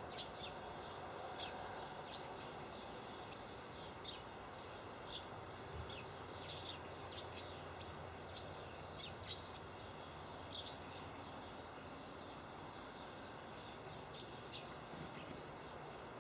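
Small birds chirping in short, scattered notes over a steady background hiss.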